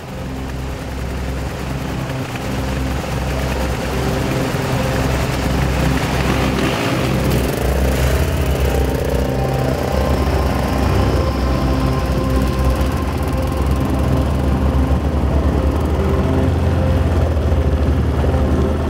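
Motorcycle engines running as a group of riders pulls away and rides off, heard from a moving bike with road and wind noise, the engine hum getting gradually louder.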